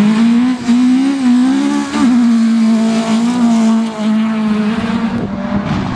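Rally car engine running hard near the top of its revs as the car slides by on a gravel stage, the pitch held high with short dips a few times before it falls away a little after five seconds.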